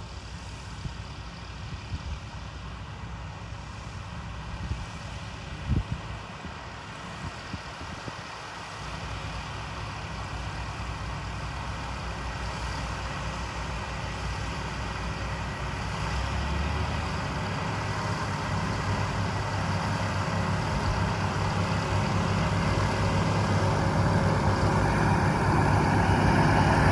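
Heavy vehicle engine running steadily, growing gradually louder over the last two-thirds, with one sharp knock about six seconds in.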